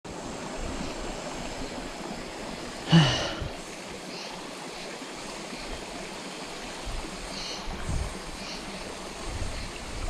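Small mountain stream running over rocks and into a shallow pool: a steady rush of flowing water. About three seconds in, one brief loud sound stands out above the water.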